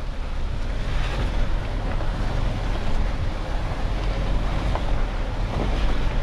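Mahindra Thar's engine pulling steadily under load as it climbs a rough dirt obstacle in two-wheel drive, a deep rumble with wind buffeting the microphone.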